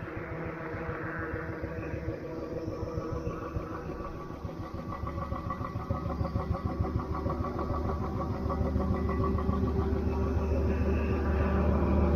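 A vehicle engine running at a steady pitch with a pulsing beat, growing gradually louder.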